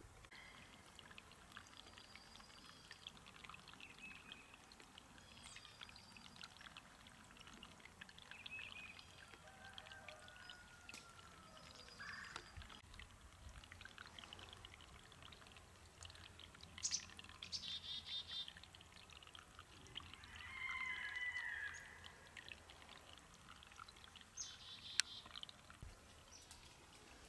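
A small snow-fed brook trickling faintly over leaves and twigs, with birds chirping now and then; a few louder trilled calls come about two-thirds of the way through and again near the end.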